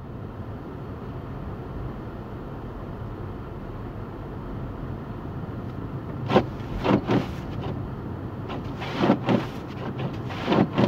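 Steady blizzard wind blowing across the microphone, broken about six seconds in by several short loud sounds in quick pairs.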